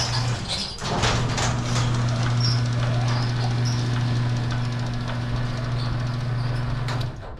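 Craftsman 1/2 hp garage door opener's electric motor running with a steady hum through its newly replaced worm and drive gears. It stops briefly near the start, starts again about a second in with a few clicks, runs for about six seconds and cuts off near the end.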